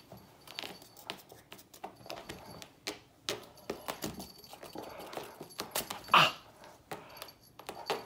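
A cat playing around fabric chairs, with scattered rustles, scratches and small knocks and one louder short sound about six seconds in.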